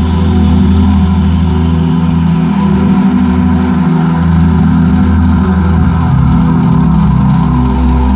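Large outdoor sound system (horeg) playing at high volume: a steady, heavy bass drone with sustained tones above it, distorted by the loudness.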